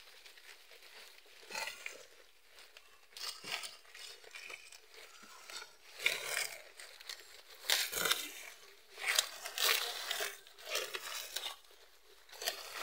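Goats eating freshly cut green grass: irregular rustling, tearing and crunching as they pull mouthfuls of stalks from the pile, the bursts coming more often in the second half.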